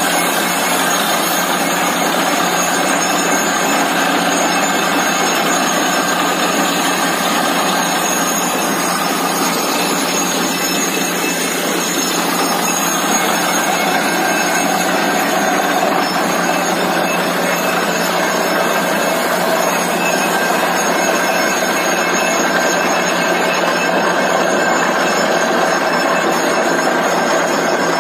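Borewell drilling rig and its air compressor running: a loud, steady, harsh mechanical noise as compressed air blows water and rock slurry up out of the bore around the drill pipe.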